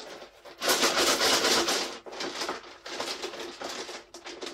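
Dice shaken inside a felt top hat: a loud dense rattle for about a second, then a run of shorter rattling bursts, about four a second.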